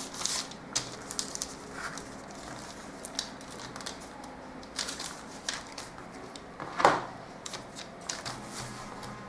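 Brown pattern paper handled and slid across a table: scattered light rustles and crinkles, with one louder one about seven seconds in.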